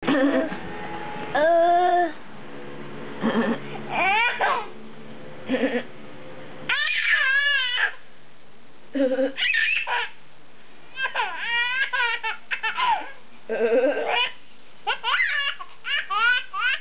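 A young child's belly laughs and giggles in repeated bursts, high-pitched, each burst swooping up and down in pitch.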